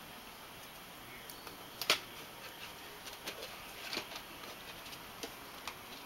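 Kitten scrabbling in a plastic window-box planter among dry plant stems: scattered light ticks and rustles, the sharpest click about two seconds in.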